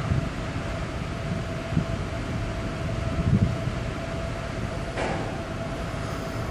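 Steady hum and rumble of the AIDAblu cruise ship's on-board machinery and ventilation, with one constant tone running through it and a few dull low thumps.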